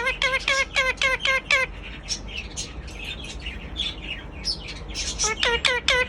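Pet parrot calling in a rapid run of repeated squawks, about five a second, then softer scattered chirps, then another rapid run of squawks near the end.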